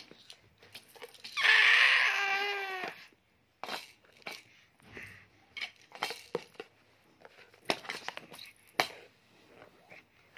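A baby's drawn-out vocal squeal lasting about a second and a half, then soft scattered clicks and taps as the baby handles plastic bottles and toys.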